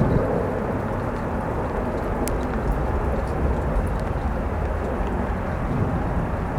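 Storm wind buffeting the microphone, with rain, as a steady low rumble and a few faint clicks.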